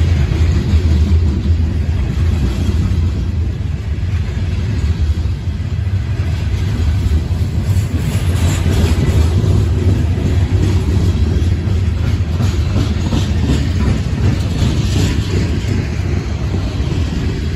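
Freight train of hopper cars rolling slowly past at close range: a steady low rumble of steel wheels on the rails, with a brief rise in higher hiss twice.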